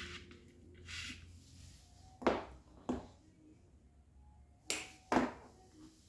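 A soft rustle, then four sharp clicks or taps in two pairs, from small craft materials being handled while a bouquet is put together.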